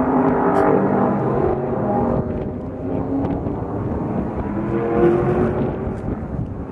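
Mosler supercar's 427-cubic-inch LSX V8 running as the car creeps forward at low speed, its engine note rising and falling.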